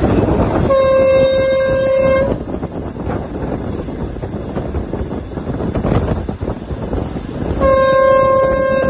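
Train horn sounding two steady single-pitched blasts, each about a second and a half long and some six seconds apart, over the steady rumble of the moving train.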